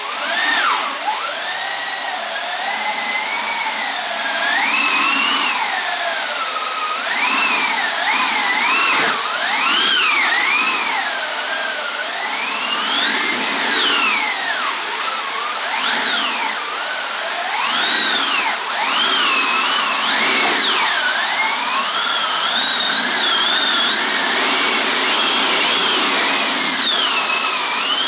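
Aeoliphone wind machine, its wooden slatted drum turning against canvas and nylon fabric strips, making a continuous howling wind sound. The pitch swells up and falls back every second or two as the cranking speed changes, often in two tones at once, and climbs highest a little before the end.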